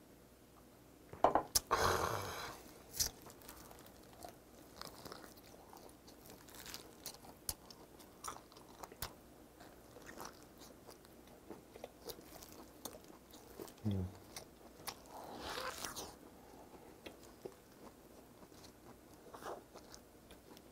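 Close-miked biting and chewing of braised pork trotter (jokbal), tearing meat off a whole front leg, with many small wet smacks and clicks. A loud burst comes about a second and a half in, and a short low hum and a breath come near the two-thirds mark.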